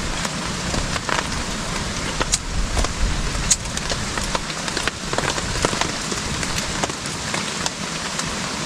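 Steady heavy rain falling, with many sharp drop hits scattered through it.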